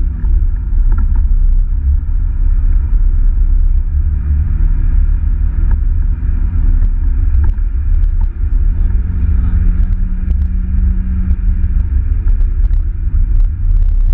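Mazda MX-5 NA's 1.6-litre four-cylinder engine under load, heard from inside the open-cockpit cabin at speed, its note falling and rising with the revs and gear changes over a heavy low rumble.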